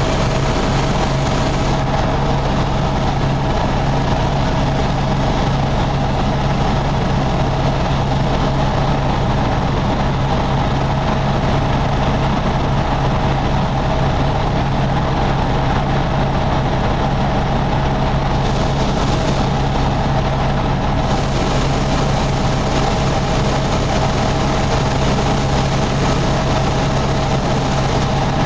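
Helicopter turbine and rotor running with a loud, steady drone, a constant low hum and a thin steady whine above it.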